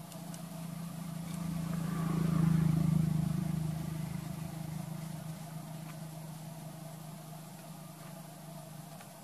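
A motor vehicle's engine drone swelling as it passes, loudest about two and a half seconds in, then slowly fading away.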